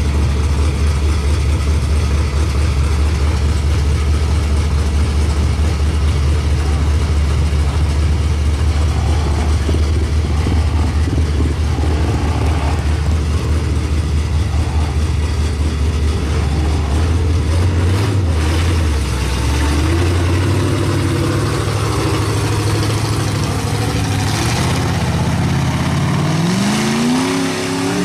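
Big-block Chevy V8 in a lifted mud truck running steadily at low revs, then revving and climbing in pitch near the end as the truck is driven hard through the mud.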